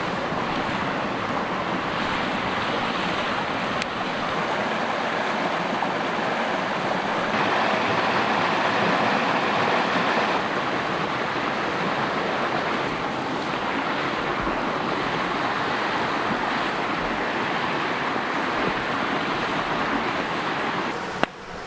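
Mountain creek water rushing steadily, slightly louder for a few seconds in the middle. There is a single sharp tick near the end.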